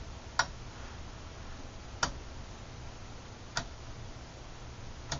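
Leader LBO-508A oscilloscope's time-base (TIME/CM) knob clicking through its detent positions, four sharp clicks about a second and a half apart. Under them runs a faint steady low hum.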